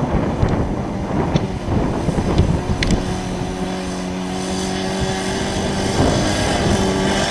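Wind buffeting the microphone, then, about three seconds in, a radio-controlled model airplane's engine heard as a steady, even drone as the plane passes.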